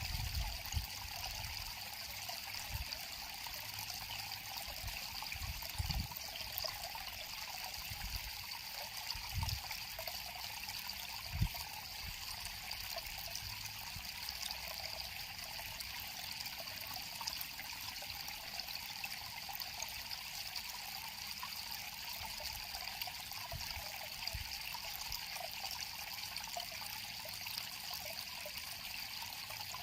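River water flowing and trickling over rocks in a steady babble, with a few brief low thuds along the way, the strongest about eleven seconds in.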